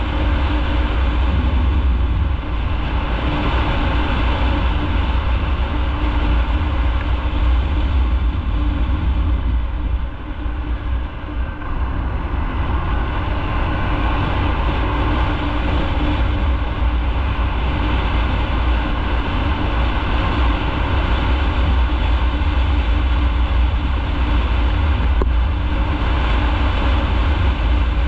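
Motorcycle riding along a city street, heard from a camera mounted on the bike: steady engine and road noise under a heavy low rumble of wind, easing for a moment about ten seconds in.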